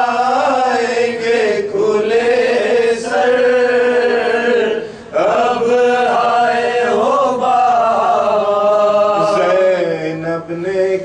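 A man's voice chanting an Urdu marsiya (elegy) in long, drawn-out melodic notes that waver in pitch, with a short break about five seconds in before the voice slides back up into the line.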